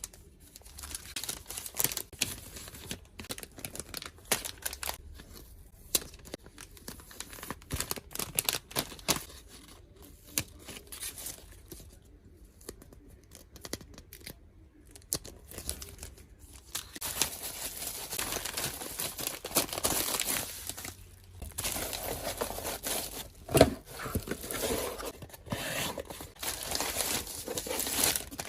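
Hand packing of small stationery orders: tape pulled and torn, and paper or plastic wrapping crinkling, with scattered small clicks and taps. A longer stretch of steady rustling comes about two-thirds of the way through, followed by a single sharp knock.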